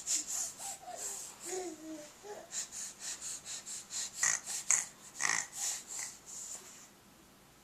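Cat making rapid breathy puffs, about three or four a second, that stop near the end. In the first two seconds or so it adds a few short gliding calls.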